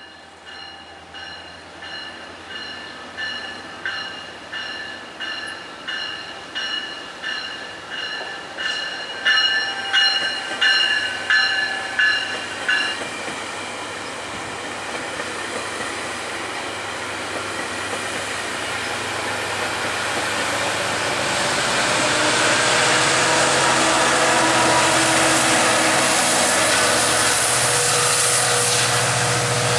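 GO Transit commuter train departing: a bell rings in even strokes, about one and a half a second and growing louder, then stops about 13 seconds in as the bilevel coaches roll past. From about 20 seconds in, the diesel engine hum and wheel noise of the MP40PH-3C locomotive pushing at the rear swell to the loudest point as it passes.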